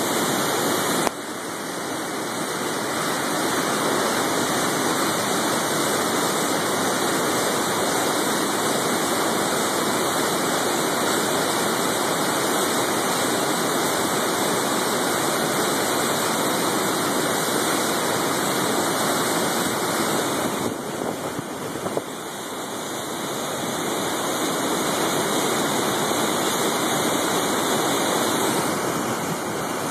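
Flooded river rapids: a steady rush of whitewater pouring over rocks, the river swollen by heavy rainfall. The rush dips briefly about a second in and again about two-thirds of the way through.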